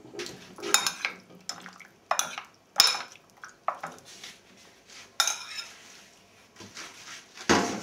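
Serving spoon knocking, clinking and scraping against a ceramic bowl and a pan as mezze maniche are tossed in sauce and served. The knocks come irregularly, several close together, and the loudest is near the end.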